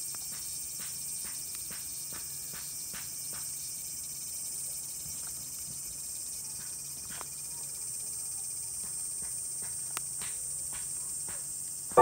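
A steady, high-pitched chorus of insects, with irregular small crackles and snaps from split firewood burning in a stainless fire stand.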